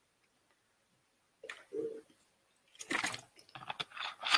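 Soft clicks and smacking noises close to a microphone, in short clusters that start after about a second and a half of near silence, with a brief low hum in between and the sharpest click at the end.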